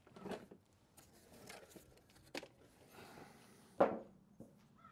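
Handling noise from the Starlink cable and its plug: soft rustling with a few light knocks, the loudest near the end.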